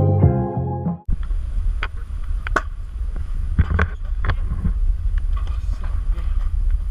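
Background music cuts off about a second in. Then wind rumbles on an action camera's microphone, with a handful of sharp clacks from a stunt scooter's deck and wheels on concrete.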